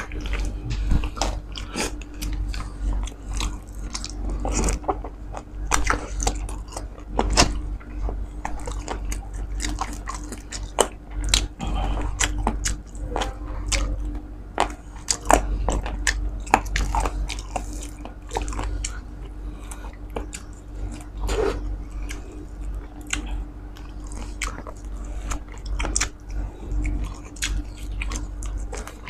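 Close-miked chewing and biting of roast suckling pig (lechon de leche), with many short sharp mouth clicks and smacks throughout; a faint steady hum runs underneath.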